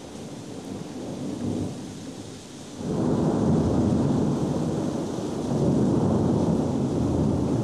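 Thunder rolling over steady rain. A loud, long rumble of thunder breaks in about three seconds in and keeps rolling, swelling again around six seconds, over the steady hiss of rain.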